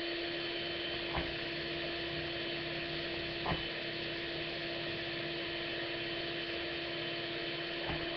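Electric hand mixer running at a steady speed, its beaters whipping shea butter, cocoa butter and coconut oil in a plastic bowl, with two light knocks about one and three and a half seconds in.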